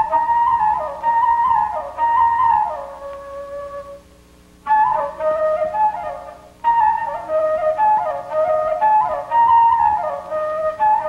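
Background music: a solo woodwind melody played in short phrases that step downward in pitch, with a brief pause about four seconds in.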